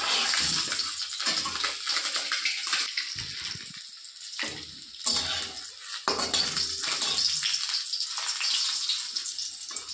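Boiled duck eggs sizzling in hot oil in a metal kadai, being fried well done, while a metal spatula turns them and scrapes the pan now and then. The hiss fades briefly about four seconds in and comes back strongly a second later.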